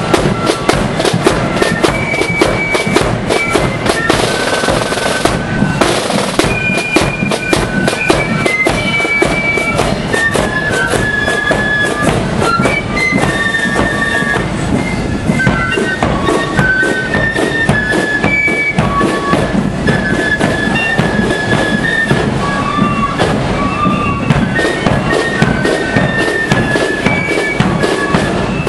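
Marching flute band playing a tune: a shrill melody of flutes in held, stepping notes over rapid snare-drum strokes.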